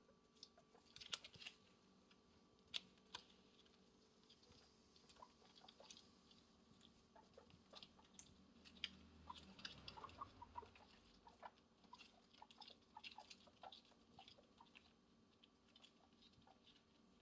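Faint, quick irregular crunching and clicking of a guinea pig chewing, with a few sharper clicks in the first few seconds.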